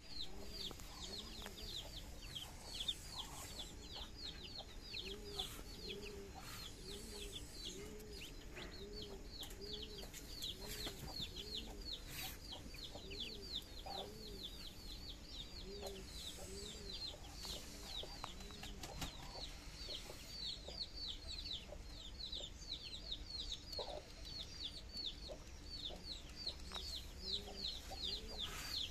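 A brood of Muscovy ducklings peeping without pause: many short, high peeps, each falling in pitch, several a second. Under them a lower, softer call repeats about one and a half times a second.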